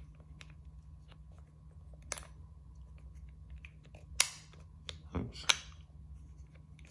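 Eric Fuller's wooden Lock Box puzzle being pressed and slid by hand: small clicks and taps of wood, a sharp click about two seconds in, then a cluster of louder clicks with a short rattle and a low knock a little past four seconds. A steady low hum runs underneath.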